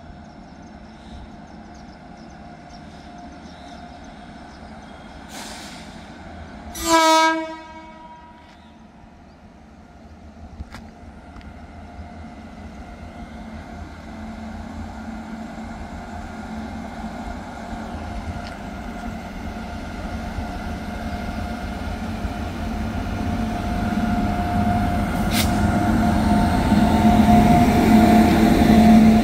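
Electric locomotive hauling a passenger express sounds one short horn blast as it approaches. The rumble of wheels on the rails then grows steadily louder as the train rolls slowly past, with a steady hum from the locomotive rising near the end.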